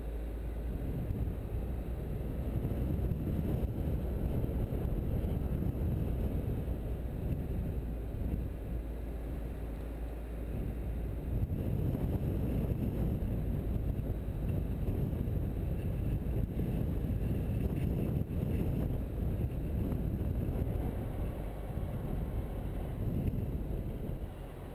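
Car driving on a paved road, heard from a camera mounted on its bonnet: a steady low rumble with wind buffeting the microphone, rising and falling a little.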